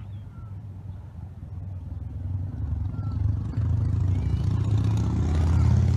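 A motor vehicle approaching, its engine hum growing steadily louder and strongest near the end.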